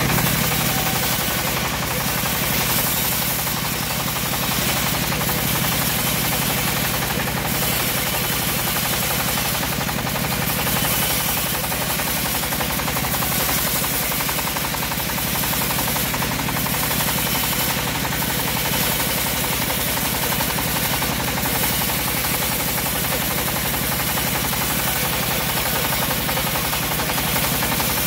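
Homemade bandsaw running steadily while its blade cuts lengthwise through a teak log.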